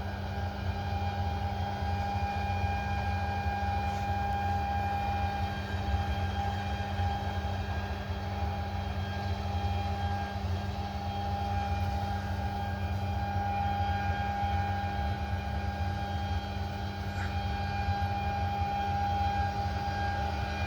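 Claas Lexion 8900 combine harvester running steadily: a low engine drone with steady whines above it, as it unloads grain into a trailer.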